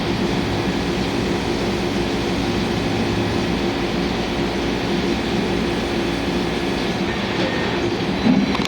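CNC milling machine profile-milling Elmax steel: a steady mix of spindle hum and cutter chatter, with a brief louder surge near the end.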